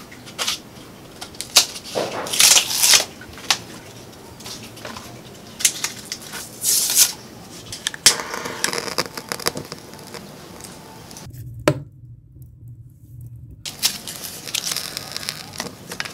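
Firewood being handled and laid into a wood-fired stove: irregular knocks and clicks of logs against each other and the stove, with a few short bursts of scraping and tearing, and one sharp knock a little after the middle.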